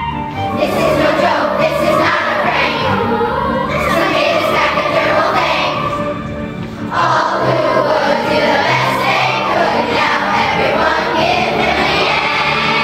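Children's choir singing a song together over a steady low instrumental accompaniment, with a short break between phrases about halfway through.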